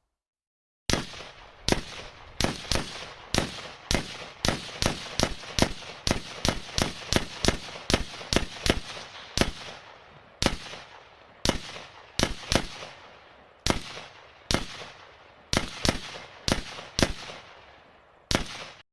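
Gunshot sound effects: a long run of single sharp shots, each with a short echoing tail, starting about a second in. They come at irregular intervals, several a second around the middle and more spaced out towards the end.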